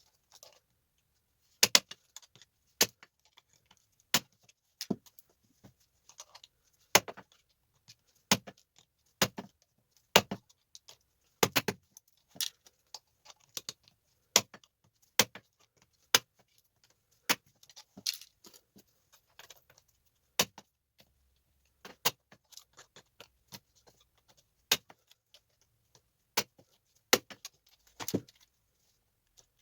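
Small metal tactile switches being snapped off circuit boards with a hand tool: sharp metallic clicks about once a second, with light clinking of small parts between them.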